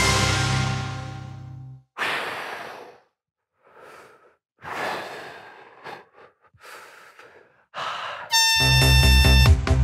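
Music fades out, then a man's heavy breaths, about six slow inhales and exhales with short silences between them. Near the end, electronic music with a steady beat comes in loud.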